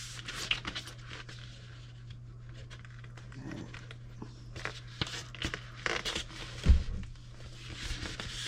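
Items being handled and packed back into a box: scattered rustling and small clicks, with one louder thump a little before the end, over a low steady hum.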